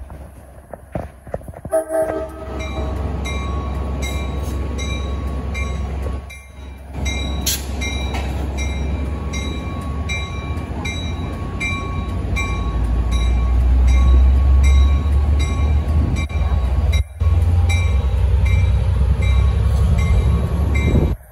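Amtrak California bilevel passenger train moving slowly past: a deep, steady locomotive rumble that grows louder past the middle. A short horn sounds about two seconds in, and a bell rings repeatedly, about twice a second.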